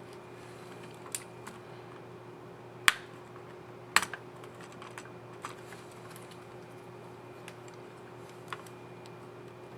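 Sparse plastic clicks from a Lenovo IdeaPad 3 14IML5 laptop keyboard as a keycap and its scissor mechanism are handled and pressed into place. Two sharper snaps come about three and four seconds in, with a few fainter clicks around them, over a faint steady hum.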